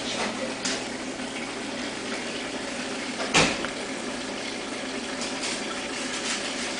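Steady water noise of a reef aquarium's circulation and filtration running, with a few faint ticks and one sharp knock about halfway through.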